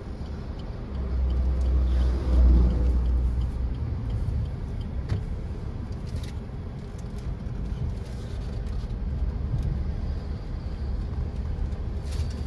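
Car noise: a low engine and road rumble that swells about a second in, is loudest around two seconds in, then settles to a steady rumble.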